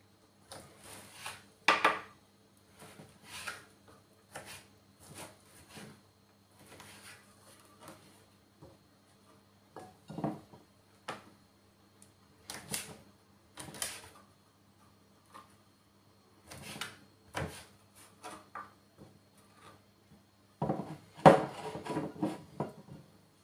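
Kitchen knife chopping cooked chicken into small cubes on a cutting board: irregular taps and clicks of the blade striking the board. Near the end comes a louder cluster of knocks and rattles as a hand reaches into a plastic container for more chicken.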